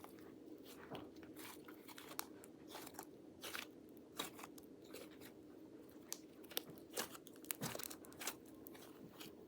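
Cloud slime being stretched and squeezed by hand, giving faint, irregular crackles and pops over a low steady hum.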